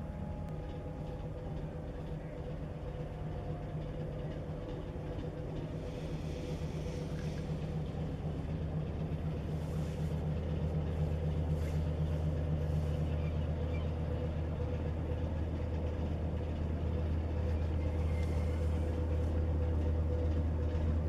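Inland cargo ship's diesel engine droning: a steady low hum with a faint higher tone above it, slowly growing louder.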